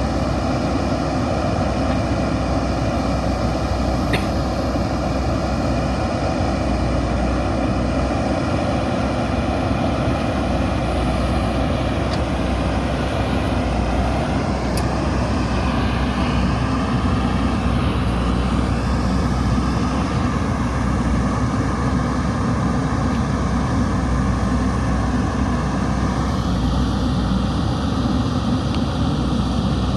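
JCB 3DX backhoe loader's diesel engine running steadily as the machine works, its tone shifting slightly about halfway through and again near the end.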